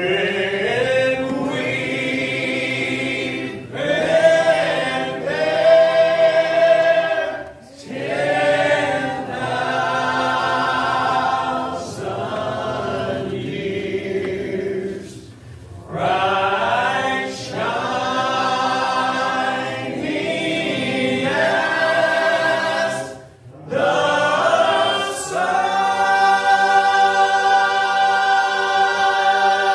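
Male gospel quartet (tenor, lead, baritone, bass) singing in close harmony, phrase after phrase with short breaks between them, closing on a long held chord near the end.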